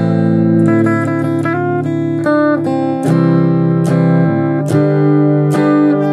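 Fender Stratocaster electric guitar, capoed, playing strummed chords in a steady rhythm with a short run of single picked notes about a second in.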